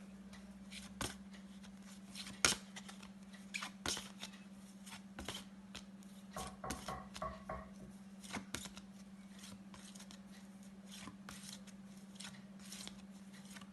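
Flashcards being handled and flipped one after another: a run of soft, irregular clicks and taps over a steady low hum.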